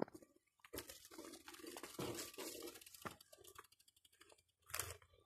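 Faint crunching footsteps of a person walking over grass and dry, cracked ground, with a louder crunch near the end.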